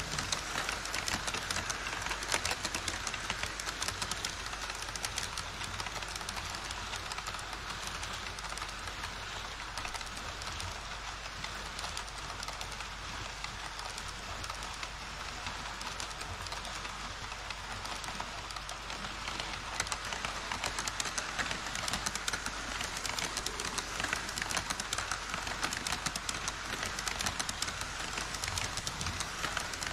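HO scale model trains running on KATO Unitrack: an E5 Shinkansen set and a freight train of tank cars and container wagons roll past together. There is a steady rumble of wheels and motors with rapid, continuous clicking of the wheels over the track.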